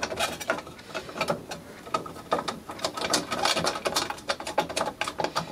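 Hands handling an electricity meter's plastic case and terminal cover: a rapid, irregular run of clicks, taps and scrapes.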